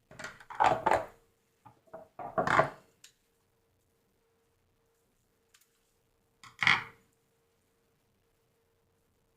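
Short knocks and clatter of small objects being handled on a tabletop: two bursts in the first three seconds and one more about six and a half seconds in.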